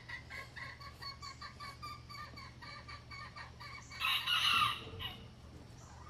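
Chickens calling in a quick series of short clucking notes, several a second, with one louder, harsher call about four seconds in that lasts about a second.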